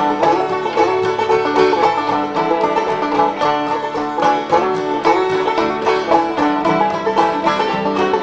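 Background music: an upbeat banjo-led bluegrass tune with fast, steady picking.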